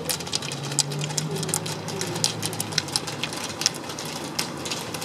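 A pack of roller skiers poling on asphalt: many irregular, overlapping sharp clicks of ski-pole tips striking the road, over a low hum that fades about three seconds in.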